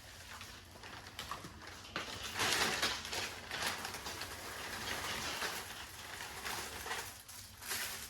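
Packaging rustling and being handled as the next item is unwrapped, uneven and loudest about two to three seconds in.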